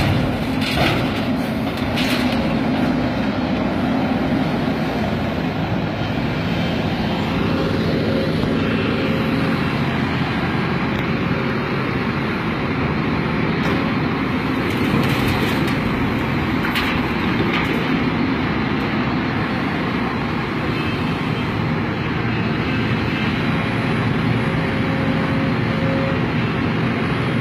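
Hidromek 300LC crawler excavator running steadily, its diesel engine and hydraulics working as it digs and loads earth into a tipper trailer. A few sharp knocks and clatters sound near the start and in the middle as earth drops into the trailer.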